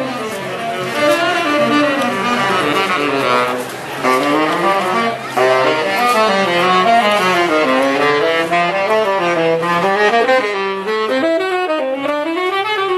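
Background music: a jazz-style melody led by a saxophone, its line rising and falling.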